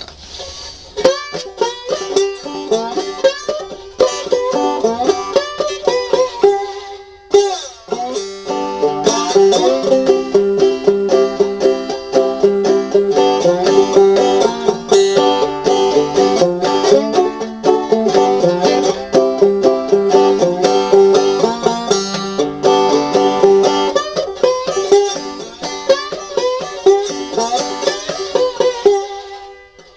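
Five-string banjo played clawhammer style with a slide in a blues tune: rhythmic plucked notes over a steady ringing drone string, with a short break about seven seconds in.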